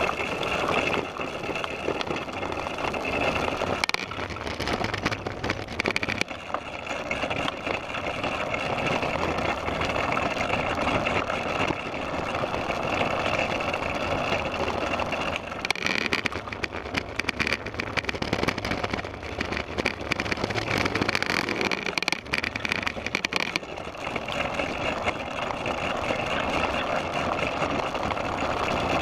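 Front wheel of a big wheel tricycle rolling over brick pavers: a steady rumbling rattle with many quick clicks, thickest in the middle of the ride.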